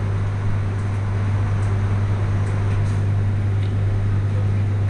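A steady low hum under a constant haze of background noise, with a few faint clicks.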